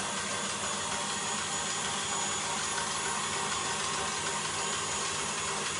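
Steady background room noise: an even hiss with a faint hum and no distinct events.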